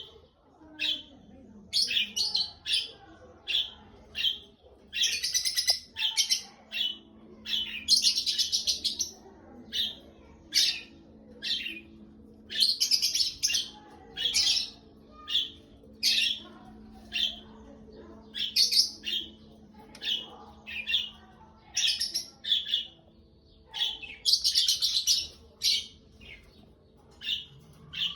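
A bird chirping over and over: short high calls about once a second, with a few longer runs of rapid notes. A faint steady low hum sits underneath from about six seconds in.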